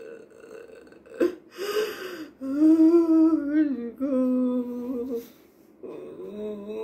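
A woman crying in grief: a sharp gasping breath about a second in, a breathy sob, then two long drawn-out wailing cries and a softer one near the end.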